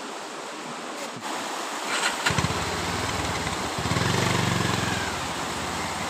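Motorcycle engine starts about two seconds in, revs up briefly, then runs steadily, over the rush of a stream being forded.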